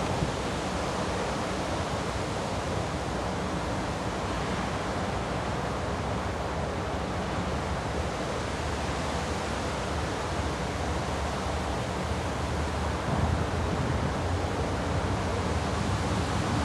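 Steady wind noise over open ground beside a railway line. In the last few seconds the low rumble of an approaching electric train grows underneath it.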